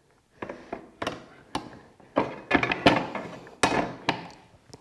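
A cordless circular saw being handled on a cross-cut station, not running: a string of sharp knocks and clacks as its base plate is set down and slid along the station's metal guide bars. The knocks grow louder in the second half.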